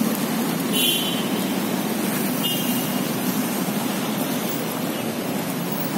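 Steady traffic noise from cars and motorcycles moving along a busy city street. A short high-pitched sound comes about a second in, and a fainter one about two and a half seconds in.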